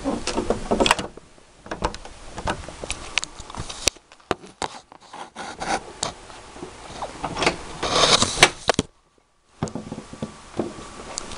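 Scattered rubbing, scraping and clicking handling noises, with a brief drop to silence about nine seconds in.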